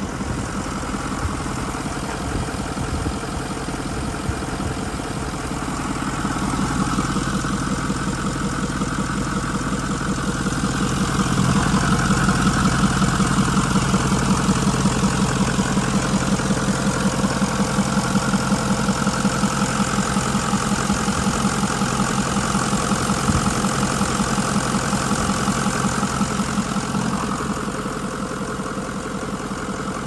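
Ford E450 Super Duty bus engine idling steadily under the open hood, with an even pulse. It gets louder about eleven seconds in, when it is heard up close.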